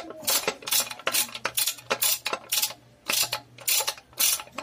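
Ratchet socket wrench clicking as crankcase cover bolts are tightened: a run of sharp metallic clicks, about two or three a second, over a faint steady hum.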